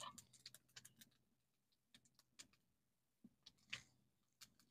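Faint, scattered little crackles of panch phoron (Bengali five-spice seeds) spluttering in hot oil in a wok.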